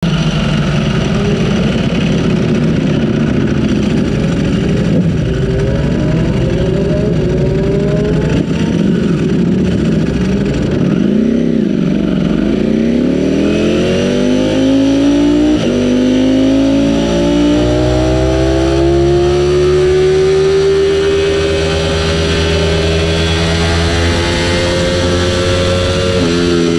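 Ducati Panigale V4 R's 998 cc V4 engine heard from the bike itself. It runs at low speed in first gear, eases off about eleven seconds in, then accelerates hard with a long rising pitch and an upshift to second.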